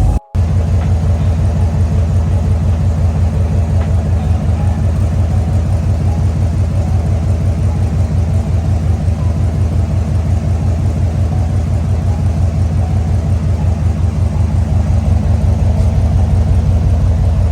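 Fifth-generation Camaro SS 6.2-litre V8 fitted with long-tube headers, idling with a loud, steady, evenly pulsing exhaust rumble. The sound breaks off for a split second just after the start, then carries on unchanged.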